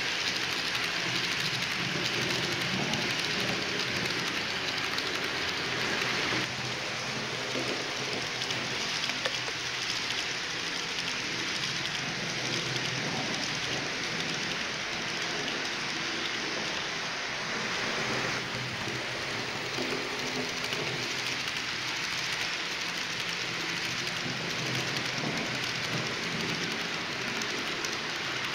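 H0-scale model train of VTG tank wagons rolling along the track: a steady rushing hiss of small metal wheels on the rails. It gets a little quieter about six seconds in and changes again around eighteen seconds.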